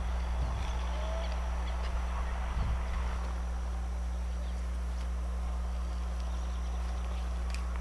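A steady low hum outdoors, with a few faint high chirps and a couple of soft low bumps.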